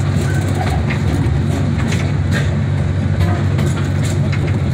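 Open-air park tour train moving along its track: a steady low engine drone with scattered rattles and clicks from the cars and rails.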